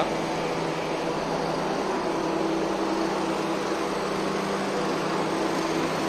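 Refrigeration condensing unit running: a steady machine hum of the compressor and condenser fan, with a few low level tones over a noisy rush.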